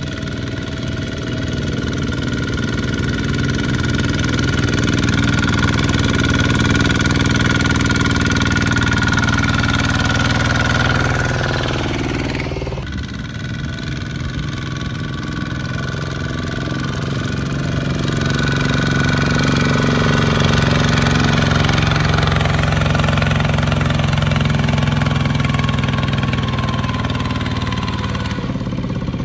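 Single-cylinder diesel engines of Kubota ZT155-type two-wheel walking tractors running under load as the tractors haul trailers of rice sacks through deep mud. The engine sound changes abruptly a little under halfway through.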